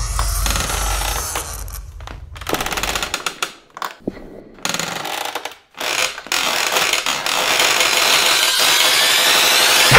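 Film sound design: a harsh, rattling noise that drops away briefly twice in the middle and builds up again toward the end.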